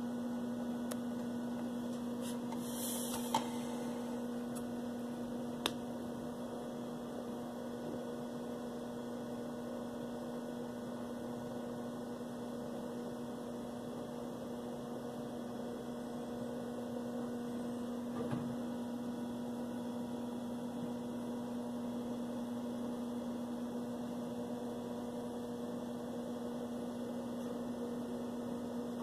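A steady electrical hum with a fainter higher tone above it, broken by a couple of sharp clicks within the first six seconds.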